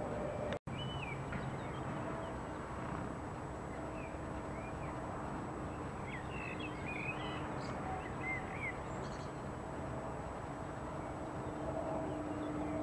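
Distant steady rumble of railway station traffic with a faint steady hum underneath that grows a little near the end, while small birds chirp now and then, most often in the middle.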